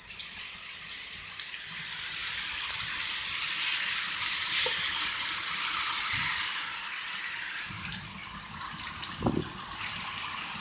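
Heavy thunderstorm rain pouring down in a steady rush. It swells to its loudest around the middle, then eases a little, with scattered sharp taps.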